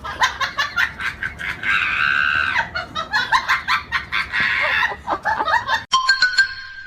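An animal's rapid run of short calls, with one longer, drawn-out call about two seconds in; near the end it cuts to a steady horn-like tone.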